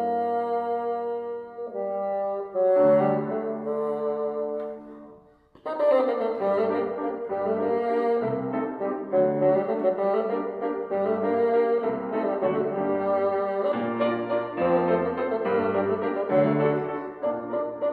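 Bassoon and grand piano playing a classical duet: held notes for the first few seconds, a brief pause about five seconds in, then a livelier passage of quicker moving notes.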